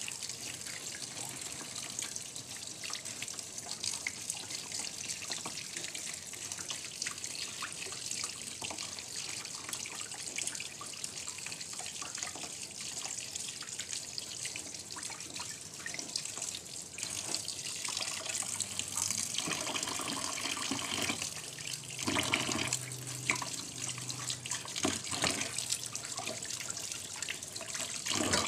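Kitchen tap running into a stainless steel sink and bowl, the water splashing over herbs and hands as the vegetables are rinsed. The splashing grows fuller and more uneven about two-thirds of the way through, with a few light knocks.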